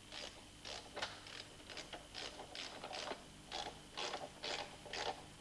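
Hand ratchet wrench being worked in short strokes, clicking about twice a second, tightening the bolts of a frame-straightening pulling clamp.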